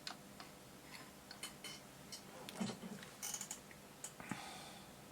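Light clicks and small knocks from handling a valve radio's chassis and controls as it is switched back on, with a click a little after four seconds followed by a soft hiss.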